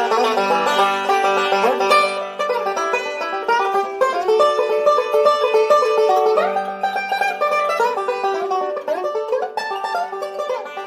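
Background music: a quick tune of plucked-string notes over a steady held lower note.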